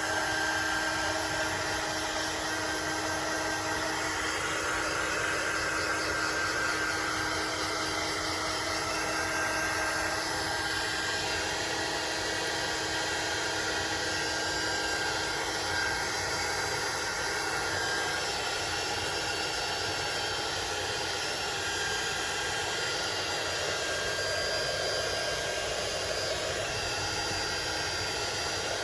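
Craft heat tool running steadily, its small fan motor blowing hot air with a constant whine, drying gesso brushed onto cheesecloth.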